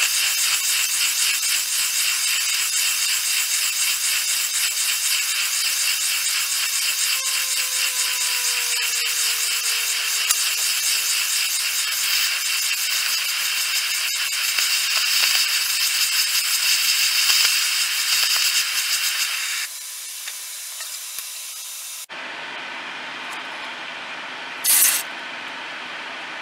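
Torch flame hissing steadily as it heats a silver bezel and brass backplate to flow solder. The hiss cuts off about two-thirds of the way in, leaving a quieter steady noise, with one short sharp hiss near the end.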